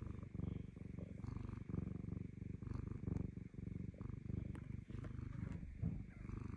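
Black cat purring close up, a steady low rumble that swells and fades with each breath in and out, while it is being cuddled.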